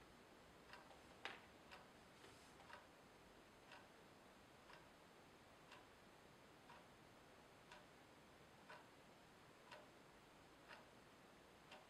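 Faint clock ticking, about once a second, with a few extra light clicks in the first three seconds.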